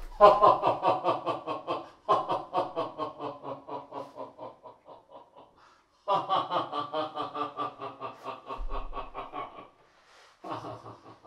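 Laughter in three long bouts of rapid, rhythmic 'ha-ha' pulses, each trailing off, with a short burst near the end.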